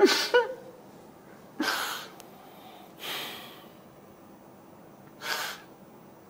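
A person sniffing and catching their breath: about five short, sharp breaths spaced a second or more apart, the first with a brief catch of voice in it.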